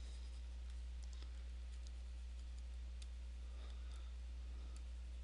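Scattered faint clicks and a few light scratchy strokes of a stylus tapping and dragging across a Cintiq pen display while erasing, over a steady low hum.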